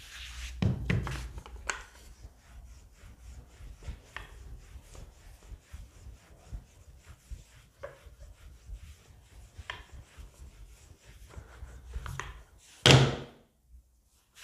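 Hands rubbing dry flour over a stack of layered roti dough and a wooden rolling pin rolling it out on the worktop, with soft scraping and light knocks. About thirteen seconds in there is one loud thunk.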